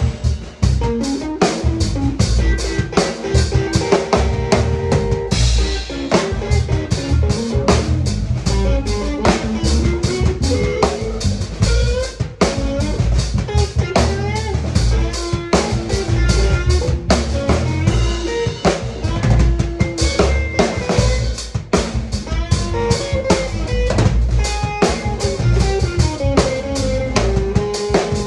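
Drum kit and electric guitar playing together live: busy drumming with bass drum and cymbals under a moving guitar line.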